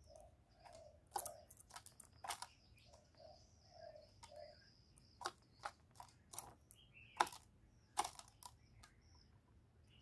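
Sharp clicks and taps from a caged spotted dove moving about in its wire cage, about a dozen in irregular clusters, with a few faint, short low notes from the bird in the first half.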